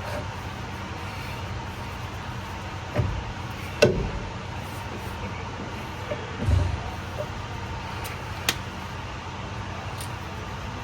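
A few knocks and clicks of metal parts being handled while an air dryer cartridge is being fitted, the loudest about four seconds in. A steady low hum runs underneath.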